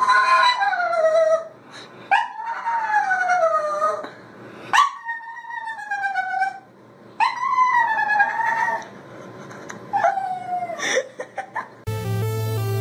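A small dog howling: five long howls, each sliding down in pitch, with short pauses between them. Electronic music starts near the end.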